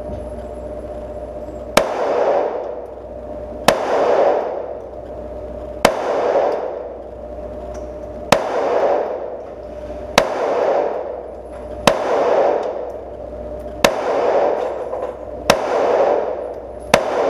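Glock 44 .22 LR pistol firing nine slow, evenly paced single shots, about one every two seconds. Each sharp crack is followed by about a second of echo, over a steady background hum.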